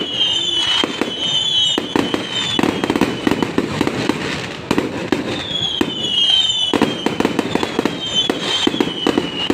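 Fireworks going off in quick succession: rapid, dense crackling pops, with groups of falling whistles at the start, about halfway through, and near the end.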